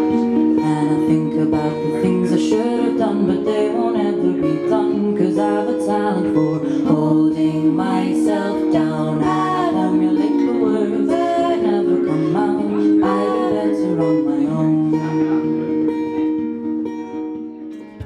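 A woman singing a song with guitar accompaniment, holding long notes over plucked and strummed chords. The music fades down near the end.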